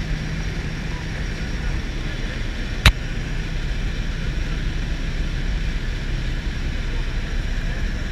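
Steady drone of a jump plane's engine and rushing air heard inside the cabin, with one sharp knock about three seconds in.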